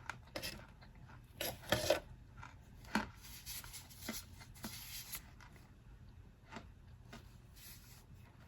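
Packed starch powder being pressed and crunched by hand: a run of short, dry crunches, loudest just before two seconds in, with a longer rasping stretch around three to five seconds and a few softer crunches after.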